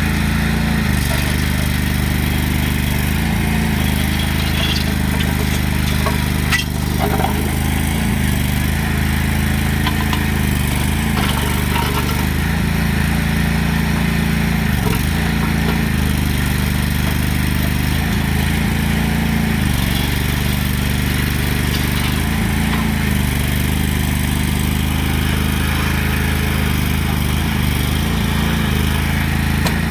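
Lay-Mor LB-30 backhoe engine running steadily, its pitch dipping briefly every few seconds, with a short click about six and a half seconds in.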